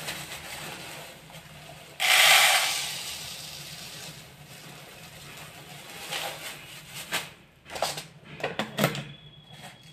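Plastic packet of urad dal crinkling in the hands as the dal is poured into a plastic storage jar, with a sudden loud rush about two seconds in and scattered crackles near the end.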